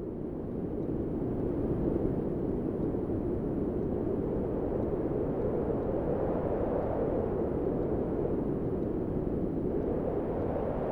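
Wind blowing in a low, steady rush, swelling and easing slowly in gusts.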